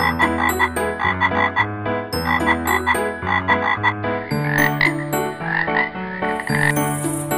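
Frogs croaking in quick runs of four or five croaks, over steady pitched notes that step up and down. A high hissing shimmer comes in near the end.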